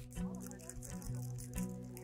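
Background music: a bass line stepping to a new note about twice a second under held tones.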